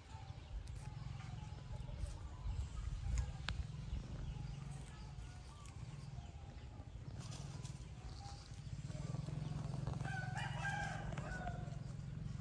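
A rooster crowing once, about ten seconds in, over a steady low rumble.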